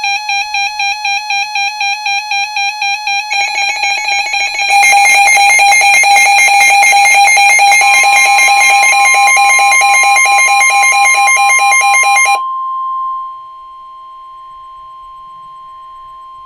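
A weather radio receiver's alert alarm beeping rapidly, about four to five pulses a second, and stepping up in loudness twice. About eight seconds in, the NOAA Weather Radio 1050 Hz warning alarm tone joins it, signalling that a warning is about to be broadcast. The beeping stops about twelve seconds in, leaving the steady, quieter 1050 Hz tone.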